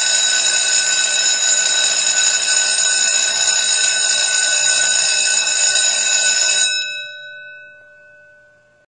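An electric bell ringing loudly and steadily, then stopping about two-thirds of the way in, its metallic tones dying away over a couple of seconds.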